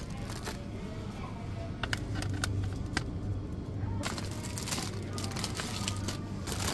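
Clear plastic produce packaging crinkling and clicking as packs of fruit are set into a plastic shopping basket, with a denser crinkling from about four seconds in. Under it runs a steady low supermarket hum.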